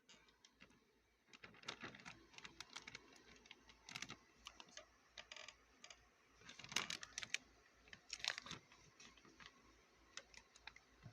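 Faint, irregular clicks and crinkly rustles of something being handled, with a few louder clusters of crackles in the middle and latter part.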